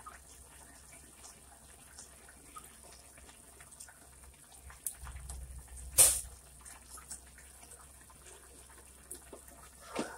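Squid simmering in sauce in a stainless steel pot, with faint bubbling and small ticks. About halfway through, liquid is poured in from a plastic bottle, with one sharp knock, the loudest sound, and another knock near the end.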